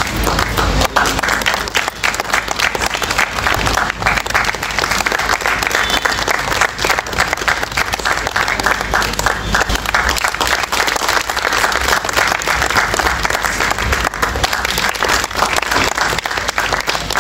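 An audience applauding, many people clapping together without a break.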